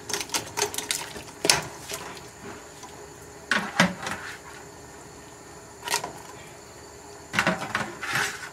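Sharp, irregular metal clicks and clanks of kitchen tongs and a live crab against a stainless steel stockpot, as the crab is lowered into the pot; a few come close together about three and a half seconds in and again near the end.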